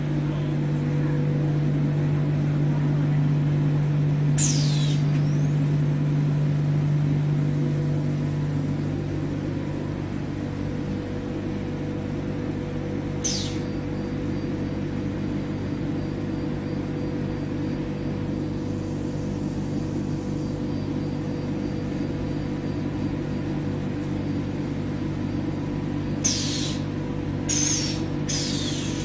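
Automatic powder bag-filling and packing machine running with a steady low mechanical hum that eases off about ten seconds in. Short sharp air hisses from the pneumatic bag clamp come once after about four seconds, again around thirteen seconds, and several in quick succession near the end as a sack is clamped on.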